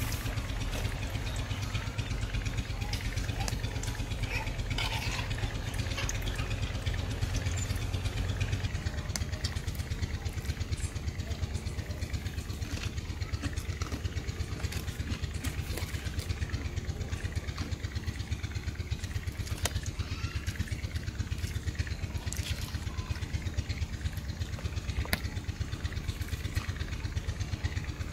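A small engine running steadily with a fast, even throb. Its low hum drops a little about nine seconds in.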